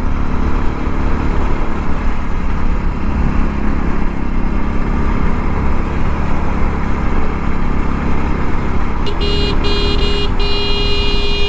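Hero Splendor motorcycle's single-cylinder four-stroke engine running under way, with a steady rumble of wind and road noise on the microphone. About nine seconds in, a horn honks: a quick toot, then two longer blasts.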